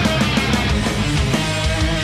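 Heavy rock music with a steady beat.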